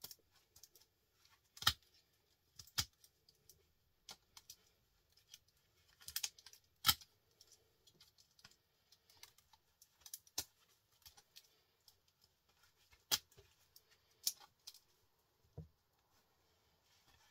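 Irregular sharp clicks and snaps of hand tools working the copper winding off a small scrap transformer, with a few louder snaps several seconds apart and a dull knock near the end.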